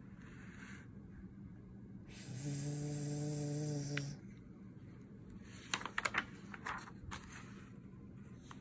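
A woman imitating a snore: one long, steady snore lasting about two seconds. Near the middle, a few crisp paper crackles and clicks as a book page is turned.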